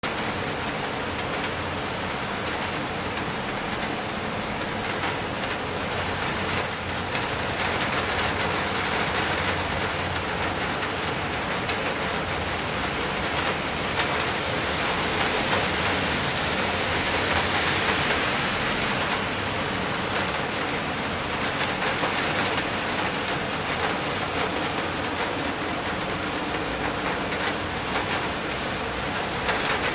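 Heavy rain pouring steadily onto rock and foliage, a dense, even hiss that swells louder about halfway through and then eases slightly.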